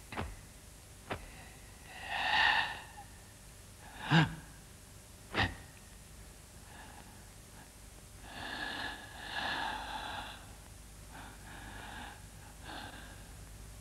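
A kung fu performer breathing hard and exhaling forcefully with a voiced huff as he works through Hung-style hand techniques. Two sharp snaps come about four and five and a half seconds in and are the loudest sounds.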